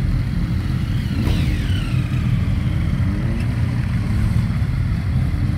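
Several motorcycles' engines running together in a steady rumble as bikes pull away. About a second in, one engine note falls sharply, and around three seconds another rises as a bike accelerates off.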